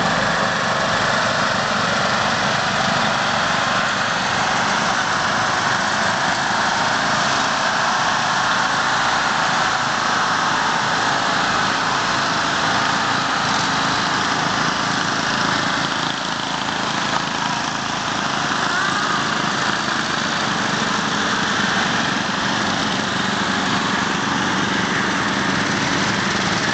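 Lawn mower engines running steadily in a continuous, unbroken drone.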